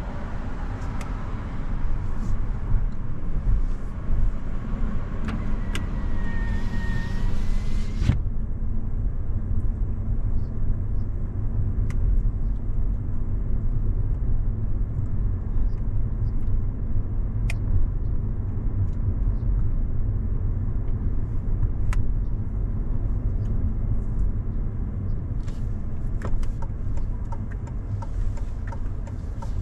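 Car being driven: a steady low rumble of engine and road noise, with a higher hiss that drops away abruptly about eight seconds in and a few faint clicks after that.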